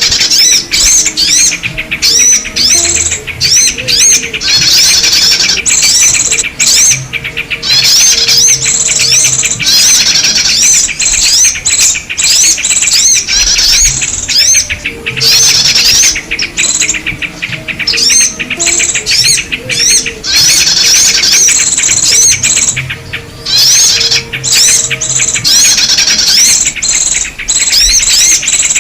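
Bird-luring call track: a loud, dense chorus of rapid chirps and twitters from small birds, meant to draw in yellow-vented bulbuls and other small birds, broken by brief gaps.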